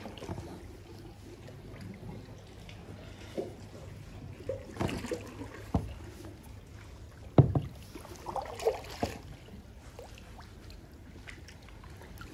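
Water lapping and slapping against a kayak's hull, with a few short hollow knocks. The sharpest, loudest knock comes about seven seconds in, followed by a brief cluster of slaps.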